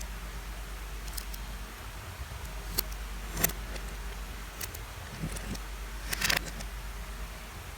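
Lego bricks being handled, giving scattered sharp plastic clicks with a small rattling cluster near the end, over a steady low hum.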